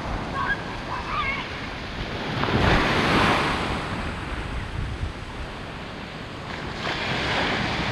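Ocean surf breaking and washing up on a sandy beach, with wind buffeting the microphone. A wave breaks and swells up about three seconds in, and another builds near the end.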